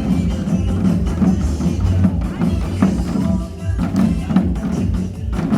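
Group drumming over backing music: drums struck together in a steady, even beat.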